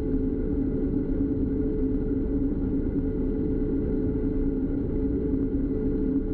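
New Holland TX66 combine harvester running steadily while cutting wheat, heard from inside the cab: a constant low drone of engine and threshing machinery with a steady whine on top.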